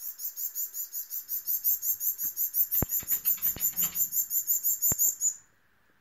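Fledgling parrot finches begging while being hand-fed: a rapid, even run of very high chirps, about six or seven a second, that stops a little before the end. A few soft clicks sound in the middle.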